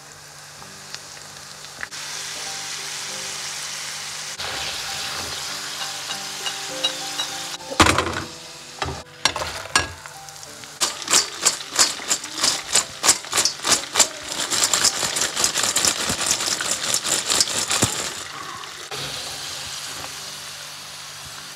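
Marinated fish pieces sizzling steadily in hot oil during their second fry to brown and crisp them. A loud knock comes about eight seconds in, and through the middle a metal slotted spoon stirs and scrapes the pan in quick strokes, about three a second.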